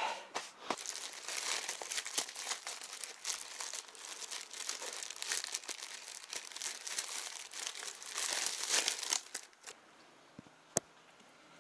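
Thin plastic packaging crinkling and crackling as a disposable dust mask is unwrapped by hand. The crackling dies away near the end, followed by a single sharp click.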